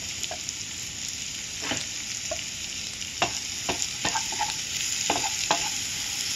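Minced garlic, sliced jalapeño and Thai chili peppers sizzling in butter in a nonstick frying pan, a steady hiss. A wooden spatula stirs them, knocking and scraping against the pan in a run of sharp clicks from about halfway through.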